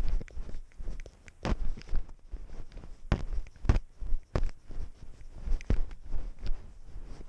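A cat's paws stepping through snow, picked up by a GoPro strapped to the cat: irregular crunching footfalls, one every half second to a second, over a steady low rumble.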